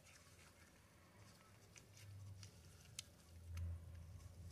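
Near silence with a few faint clicks and rustles of a spinning reel's metal parts being handled in gloved hands, over a low hum that grows louder near the end.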